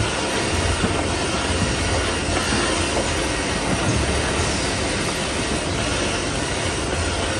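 XY-AI-400 automatic toilet paper band saw cutting machine running, a steady mechanical noise of the saw and its conveyor, with a faint falling high squeal about four and a half seconds in.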